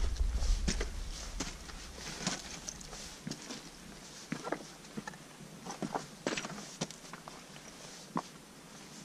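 Hiking boots stepping over loose rock and scree on a mountain ridge: irregular clicks, knocks and scrapes of shifting stones underfoot. Wind rumble on the microphone at the start dies away within about a second and a half.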